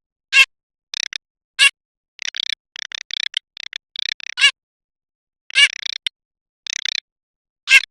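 Garganey calling: short bursts of dry, rapid clicking repeated many times, mixed with about five brief, sharper calls. The recording cuts to dead silence between calls.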